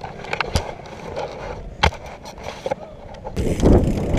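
Scattered clicks and knocks, then a little over three seconds in a loud rough rumble starts: a BMX bike's tyres rolling over a flagstone path.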